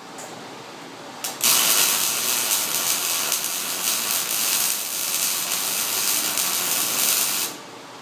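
MIG welder arc crackling steadily for about six seconds as a bead is laid on steel oil field pipe, starting and stopping abruptly.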